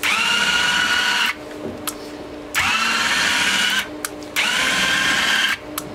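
Electric gear motors of a GLK motorcycle landing gear whining as they drive the legs, in three runs of about a second each with short pauses between them; each run starts with a quick rise in pitch, and sharp clicks fall in the pauses. The gear is running smoothly.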